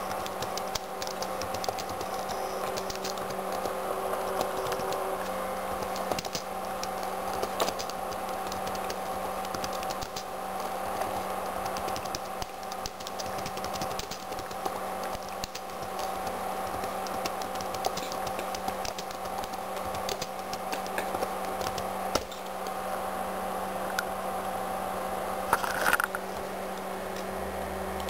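Typing on a computer keyboard: a run of quick key clicks over a steady electrical hum, with one louder click or knock about two seconds before the end.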